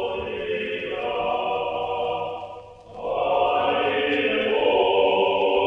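Choral music with long held chords; it fades almost away about three seconds in, then swells back louder.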